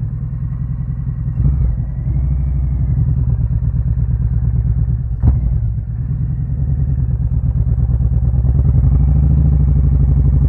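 Touring motorcycle engine pulling away and accelerating, growing louder over the last few seconds. There is a sharp click about five seconds in.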